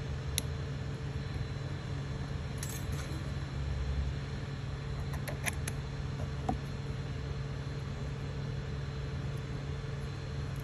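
Steady hum of the Creality Ender 3 3D printer's fans, with a few faint clicks from fingers handling the filament at the extruder, several of them close together about halfway through.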